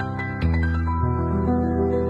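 Soft, slow instrumental background music of sustained melodic notes, with a deep bass note coming in about half a second in.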